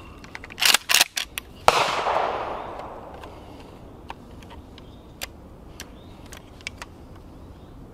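Metallic clicks of 20-gauge shells being thumbed through the loading gate into the tube magazine of a Springfield 67F pump shotgun, a quick run of them early and a few scattered ones later. About two seconds in, a single gunshot rings out and echoes away over a second and a half.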